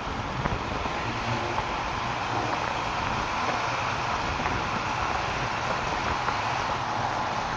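Steady vehicle and road noise: a continuous low rumble under a broad hiss, with no horn sounding.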